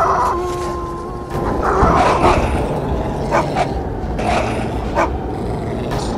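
Cartoon growling and snarling of a snow wolf and a two-headed lava dog as they face off and fight, with a few sharp snaps, over background music.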